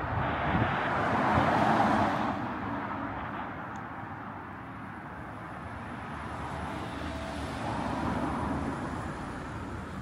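A car passing close by: its engine and tyre noise swells and fades over the first couple of seconds. A second, quieter vehicle passes later.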